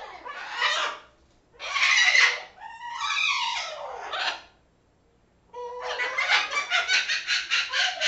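Pet parrots squawking: three loud, harsh calls in the first half, then, after a second's pause, a fast string of short repeated calls.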